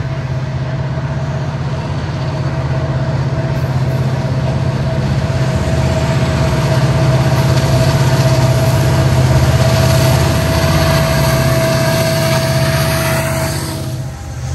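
Norfolk Southern diesel freight locomotives approach and pass beneath: a deep engine rumble with a steady whine over it. It builds to its loudest a little past halfway, then drops off abruptly near the end as the locomotives go under the bridge.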